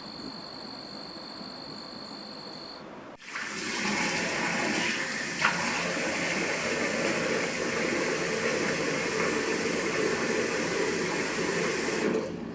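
Water running hard from a kitchen tap, turned on suddenly about three seconds in and shut off near the end, with a single clink partway through. Before the tap opens, a steady high-pitched tone.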